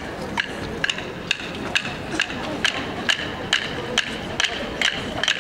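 Wooden drumsticks clicked together in a steady beat, about two sharp clicks a second, counting in a barrel-percussion group.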